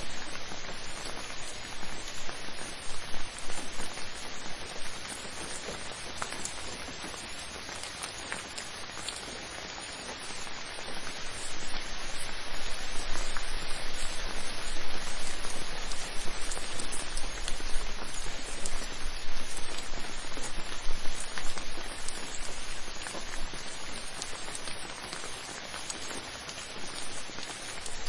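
Steady rainfall, dense drops pattering on a surface, growing a little heavier about halfway through.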